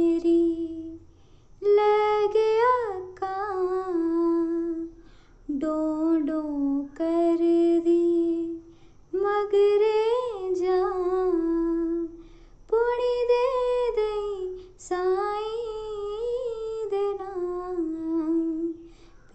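A woman singing a Punjabi Sufi devotional song unaccompanied, in long held melodic phrases with short pauses between them.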